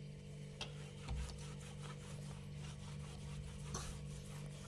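Cloth wiping and rubbing across a refrigerator surface during cleaning, faint, over a steady low hum.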